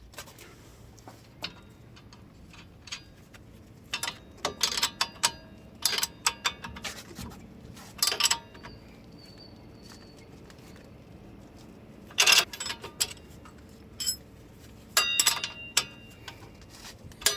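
Hand tools on the nuts of a new sway bar link being fitted: sharp metallic clicks and clinks in several short clusters, with quieter gaps between.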